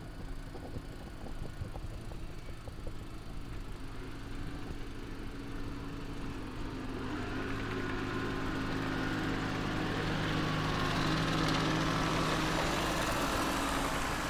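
Engine of a mowing machine running steadily, getting louder from about halfway through as it comes closer.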